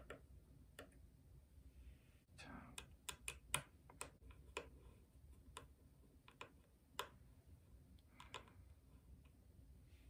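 Faint, irregular small clicks and ticks of a precision screwdriver working the tiny screws out of an iPhone 6 Plus's LCD connector cover plate.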